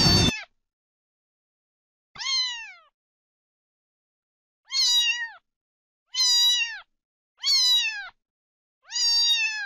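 A domestic cat meowing five times, each meow under a second long, holding its pitch and then dropping at the end, with short silent gaps between them.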